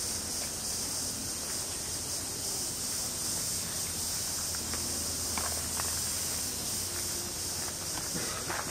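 Steady, high-pitched chorus of summer cicadas, with a few faint footsteps on the garden path.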